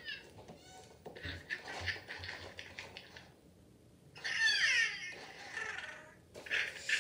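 Interactive toy owl giving a short electronic warbling cry about four seconds in, with rustling handling noise as it is held and rubbed before and after.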